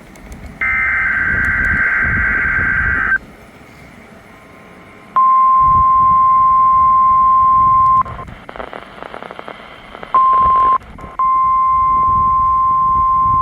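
NOAA Weather Radio alert signals. A burst of SAME digital alert data, a harsh raspy warble, runs for about two and a half seconds. After a short pause comes the weather radio's steady single-pitch warning alarm tone, sounded here as a weekly test. The tone is broken once by a couple of seconds of radio static and once by a short gap.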